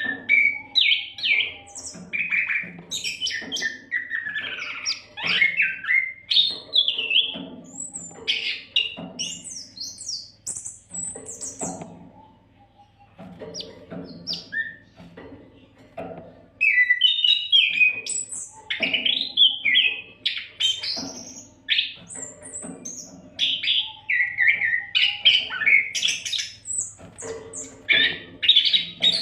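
Oriental magpie-robin (kacer) in full song: a rapid, varied string of whistled notes, slurs and chatters, with a lull about twelve seconds in before it picks up again loudly.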